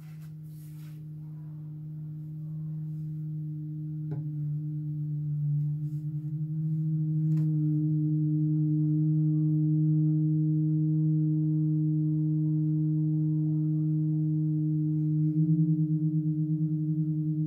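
Halldorophone feedback drone: the D string and a sympathetic string sound together as a low sustained tone that swells up over the first several seconds. Where the two pitches nearly meet they beat against each other, and near the end the beating turns into a fast, even pulsing. A couple of faint clicks are heard along the way.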